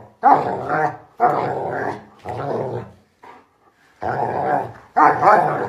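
A dog growling and grumbling in a run of about five drawn-out, wavering growls, each under a second long, with a short pause about three seconds in.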